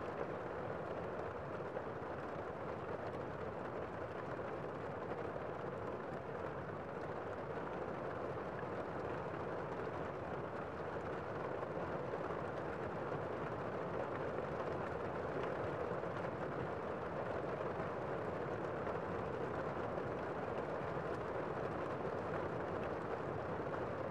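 Gentle rain falling steadily on a window: an even hiss without single drops or other sounds standing out.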